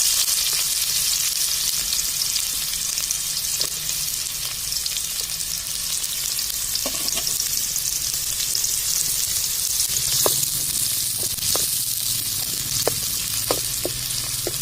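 Chopped onions frying in hot oil, a steady sizzle. From about halfway in, scattered clinks as they are stirred in the pan.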